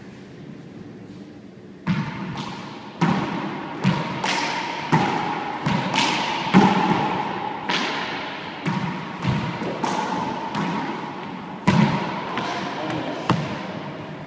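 A rubber handball is struck by gloved hands and smacks off the walls and floor of an enclosed court in a rally. It makes a quick series of sharp smacks, about one a second, starting about two seconds in, each echoing in the court.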